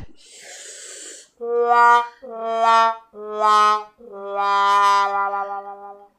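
A short hissing swish, then a "sad trombone" sound effect: four descending brass notes, the last held longer with a wobble.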